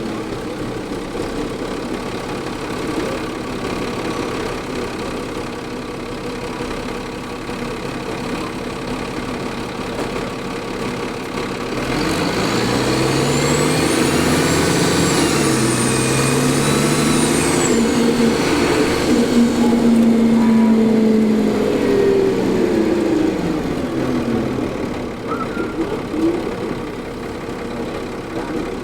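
Cummins ISL diesel engine of a 2004 New Flyer D40LF transit bus, heard on board. It runs steadily for about twelve seconds, then pulls harder, its pitch climbing in steps as the automatic transmission shifts, with a high turbocharger whine rising and falling over it. Near the end it eases off and the pitch drops.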